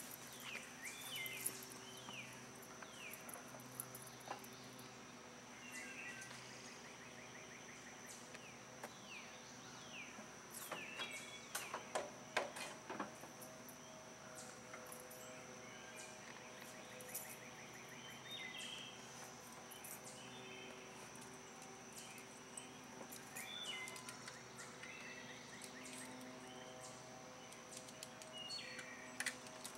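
Quiet outdoor ambience: scattered bird chirps over a steady high tone, with a few sharp knocks and clatters about twelve seconds in as someone climbs onto the tractor. The tractor engine is not running.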